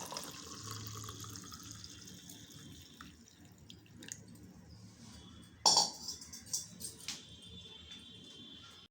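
Tea being poured into a cup, the stream of liquid tapering off over the first few seconds. A sharp clink about six seconds in, followed by a few lighter knocks.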